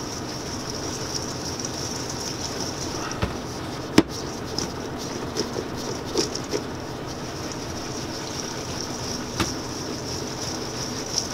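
Maraschino cherries rolling and rattling in confectioners' sugar as a stainless steel bowl is swirled by hand: a steady rumbling hiss. Occasional short sharp knocks come through, the loudest about four seconds in.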